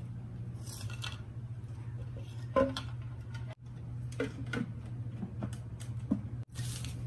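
Light plastic clicks and knocks as the clear plastic parts of a cat water fountain are handled and fitted into its tank, the loudest about two and a half seconds in, over a steady low hum.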